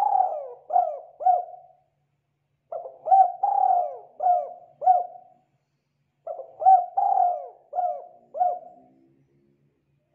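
Spotted dove cooing: a phrase of several quick coos, repeated three times about three and a half seconds apart.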